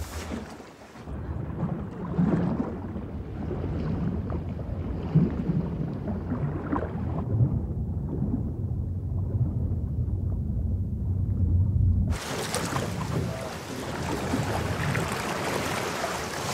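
Muffled, low rumble of moving water heard from underwater, with little treble. About twelve seconds in it switches abruptly to open-air sea and wind noise.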